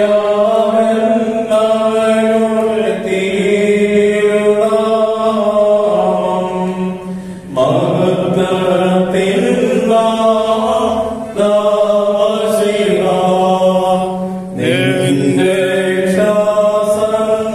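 Group of voices chanting a church liturgical hymn in unison, phrase after phrase with short breaths between them.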